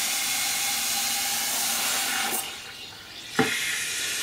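Hot water spraying steadily from a carpet-cleaning wand fed through an inline heater. The hiss falls away for about a second just past halfway. A sharp knock follows and the spray resumes.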